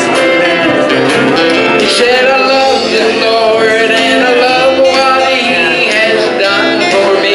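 Country gospel song with guitar accompaniment, a man singing over it into a microphone.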